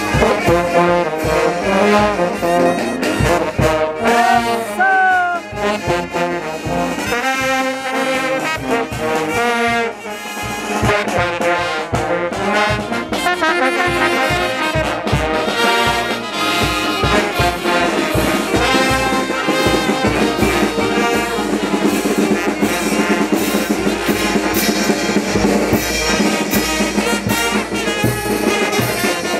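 A brass band of sousaphones, horns, trumpets, trombones and saxophone, backed by bass drum and snare drums, playing a dance tune with a steady beat.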